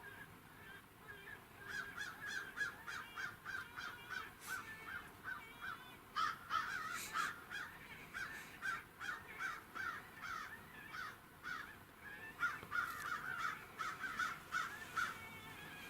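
Rapid, repeated raspy calls, about three or four a second, coming in three bouts, the middle one the loudest.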